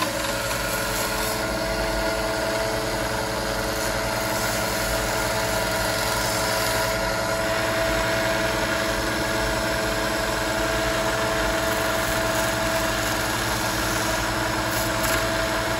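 Delta bench belt sander running steadily with a steady whine, as the edge of a fender flare is ground against the moving belt.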